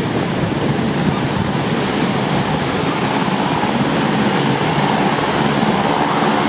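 Distant T-6 Texan warbirds' radial engines droning over a steady rush of wind and surf noise. The engine note grows stronger near the end.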